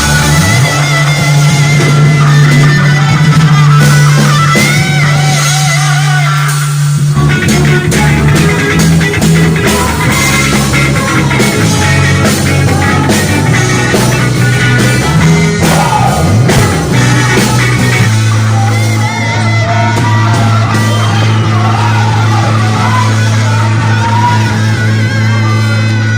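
Live worship band playing a rock-style song: singing over guitar, with a low bass line holding long notes that change every few seconds.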